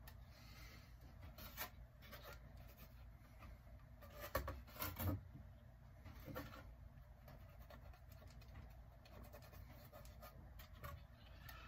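Faint handling noise of a printed circuit board being moved and turned over on a wooden workbench: a few light knocks and scrapes, the loudest a short cluster about four to five seconds in, over a low steady room background.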